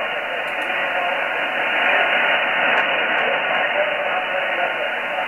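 Shortwave receiver audio in lower-sideband mode on the 80 m band: steady band-noise hiss, cut off sharply above about 3 kHz by the receiver's filter, with faint traces of a weak sideband signal underneath.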